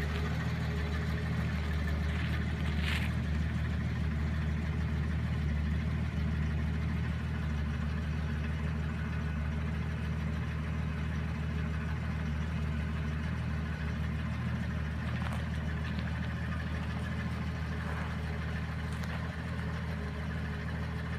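1964½ Ford Mustang engine idling steadily.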